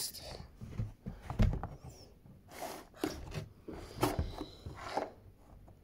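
Cardboard toy box being handled and opened on a tabletop: a few scattered, irregular knocks and scrapes.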